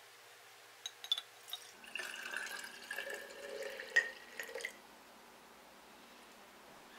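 Liquid poured from glass jars into a glass mason-jar mug: a few glass clinks, then about three seconds of trickling and splashing into the glass, with a sharp clink near the end of the pour.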